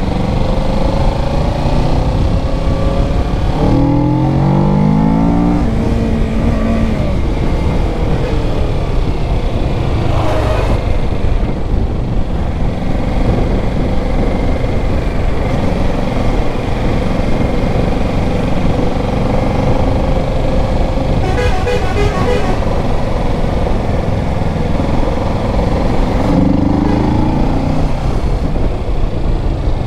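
Kawasaki Ninja 650's parallel-twin engine running under way, with steady road noise. Its revs climb twice, about four seconds in and again near the end. A vehicle horn sounds briefly about 21 seconds in.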